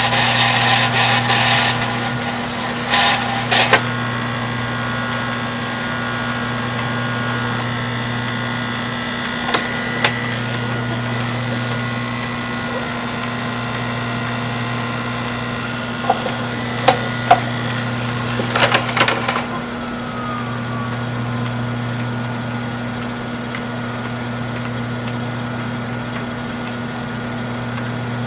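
Samsung DVD-V9800 VCR deck's tape transport winding a VHS cassette at high speed, the rushing wind noise cutting off about two seconds in with mechanism clicks as the tape hits its end. The reel motor then keeps up a steady hum and whine as the deck goes on trying to wind the ended tape. A run of mechanism clicks and clunks comes near the middle, as the deck unloads the tape, followed by a quieter steady hum.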